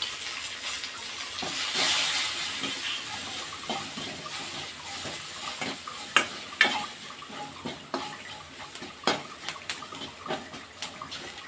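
Mustard seeds, dried red chillies, curry leaves and crushed garlic sizzling in hot oil in a stainless steel kadai, stirred with a spatula that scrapes and clinks on the steel. The sizzle is fuller in the first few seconds; a few sharp clinks of the spatula stand out in the second half.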